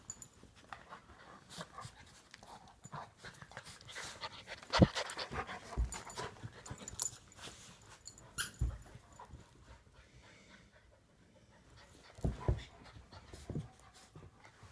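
Two dogs play-wrestling: panting and scuffling, with a series of knocks and one sharp, loud thump about five seconds in.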